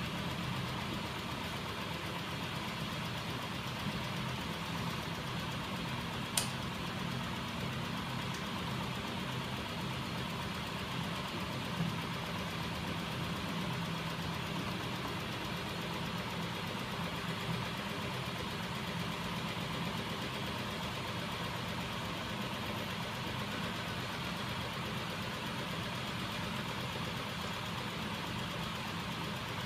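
Homemade magnet-coupled crankshaft machine driven by a small 12 V DC electric motor, running steadily with a mechanical whir. Two sharp clicks, about six and twelve seconds in.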